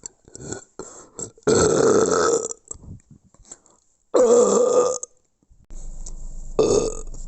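A person burping loudly three times: a long belch about a second and a half in, another about four seconds in, and a shorter one near the end. A few small clicks come before the first.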